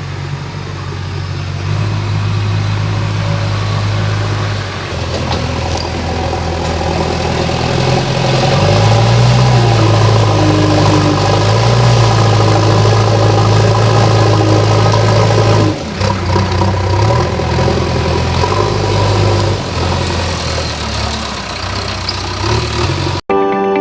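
JCB backhoe loader's diesel engine running under load, its pitch rising and dipping as the machine works. It cuts off abruptly near the end.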